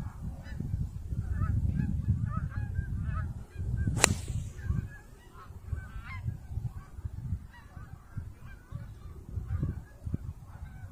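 Golf driver striking a teed ball about four seconds in: one sharp crack with a brief ring. Wind rumbles on the microphone, and birds call repeatedly in the background.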